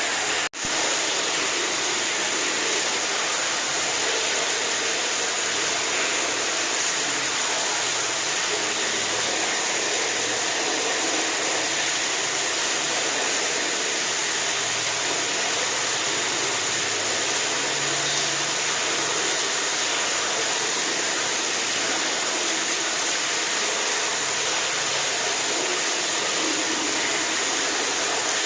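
Steady rushing water, a continuous even hiss with no changes, broken by a very brief gap about half a second in.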